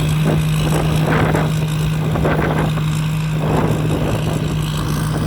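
Combine harvester with a Hino J08C turbo-diesel engine running steadily under load while harvesting rice: a constant deep drone with irregular swells of rushing machinery noise over it.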